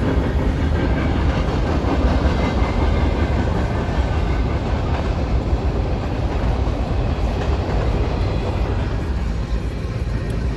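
Norfolk Southern mixed freight train passing, its covered hoppers and tank cars rolling by on the rails with a steady noise of wheels on track.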